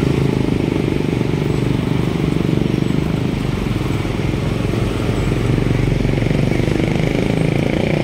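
Street traffic at close range: motorcycle and small-truck engines running, a steady low rumble.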